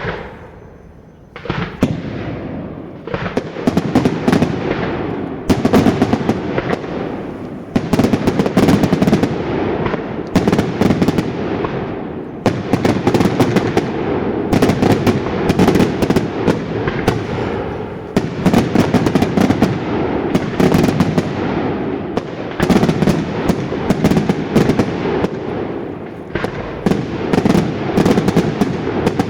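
Daytime fireworks display: a dense, rapid barrage of bangs and crackling reports that builds up about a second and a half in, with heavier volleys every couple of seconds.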